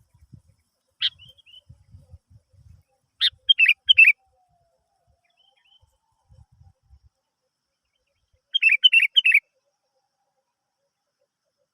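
Sooty-headed bulbul (kutilang) calling: a single short note about a second in, then a quick run of bright chirpy notes a few seconds in, and another such run near the end.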